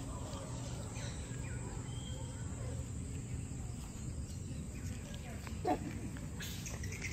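Outdoor hillside ambience: a steady low rumble with faint bird and insect calls, and a short call rising and falling about six seconds in.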